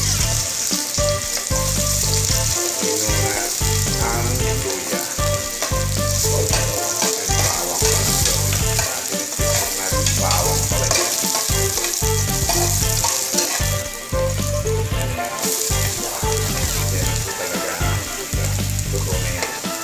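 Chopped garlic and ginger sizzling in hot oil in an aluminium pot: a steady crackling hiss, with a metal ladle stirring and scraping the pot.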